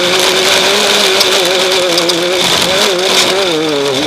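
Off-road race vehicle's engine running hard, heard from on board: its pitch holds steady for a couple of seconds, then wavers up and down and drops near the end, over a constant rush of wind and terrain noise.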